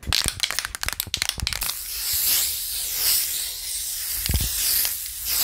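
Intro sound effect of an aerosol spray-paint can: a quick run of sharp clicks, then a long, loud spray hiss with a couple of low thuds under it.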